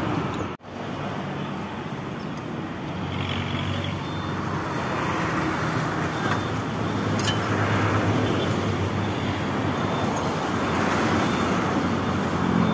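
A motor vehicle engine running steadily, with street traffic noise around it. The sound drops out for an instant about half a second in, and a few faint clicks come through later.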